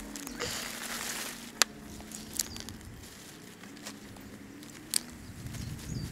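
Rustling and tearing of large cauliflower leaves as the plants are handled and stripped, with a few sharp clicks.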